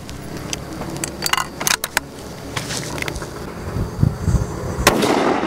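The bolt of a PGW Coyote bolt-action sniper rifle being worked after a shot: a string of sharp metallic clicks and clacks, several in quick pairs, with a louder one near the end, as the spent case is ejected and the next round chambered.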